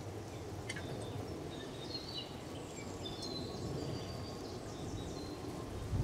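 Small songbirds chirping with short, high notes, scattered mostly through the middle, over a steady low outdoor rumble.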